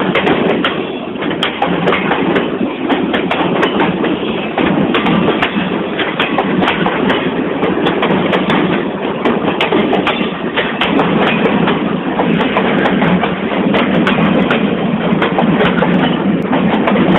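Freight train boxcars rolling past, a loud steady rumble with wheels clicking and clattering irregularly over the rails.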